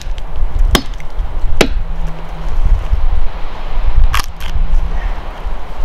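Tomahawk chopping into a dead branch stub on a pine trunk to cut out fatwood. Three sharp chops about a second apart, then after a pause a longer, doubled crack about four seconds in.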